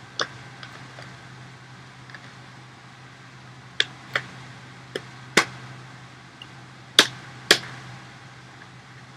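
Scattered sharp clicks and knocks of small objects being handled and set down during clean-up, irregularly spaced, with three louder knocks in the second half. A faint steady hum runs underneath.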